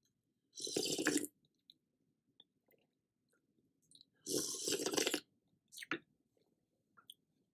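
Close-miked eating of spicy seafood noodle soup: two loud, noisy mouthfuls about three and a half seconds apart, with a shorter one just after the second and soft chewing in between.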